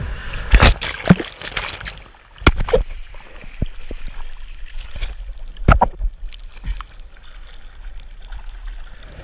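Sea water splashing and gurgling around a body-mounted action camera as a kite foiler wipes out into the water, with a few sharp splashes or knocks, the loudest about half a second and a second in, again at two and a half seconds and near six seconds.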